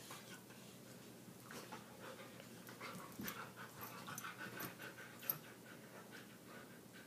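A Labrador puppy and an adult Labrador play-wrestling: faint panting, mouthing and scuffling, with a few short squeaky noises in the middle and one sharp tap a little past five seconds in.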